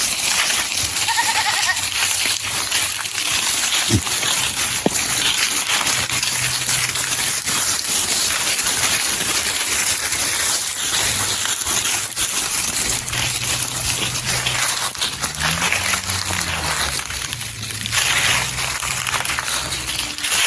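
Goats bleating, several low calls in the second half, over a steady rushing noise.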